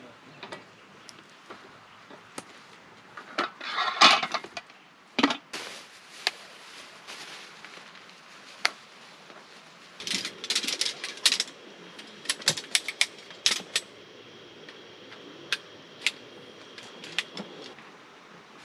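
Irregular sharp clicks, knocks and clatter of camping gear being handled during tent setup, with short bursts of rustling about four seconds in and again around ten to eleven seconds.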